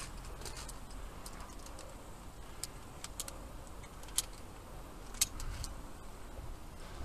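Via ferrata lanyard carabiners clinking against the steel safety cable as the climber moves along: a few sharp metallic clicks, the loudest about four and five seconds in, over a low rumble of wind on the microphone.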